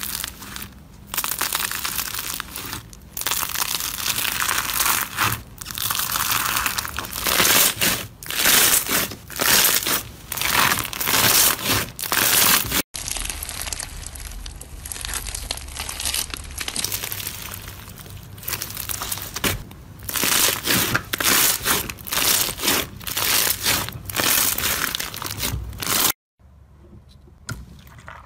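Foam-bead slime (floam) being poked, squeezed and stretched by hand, the tiny foam beads crunching and crinkling in repeated squeezes. It breaks off sharply about halfway and comes back as a second batch, then turns much quieter near the end.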